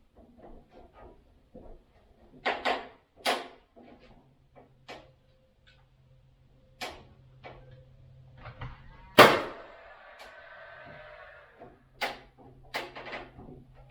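Cordless Paslode nail gun face-nailing PVC soffit boards with 2-inch nails: several sharp shots, the loudest about nine seconds in, with a short rushing tail after it.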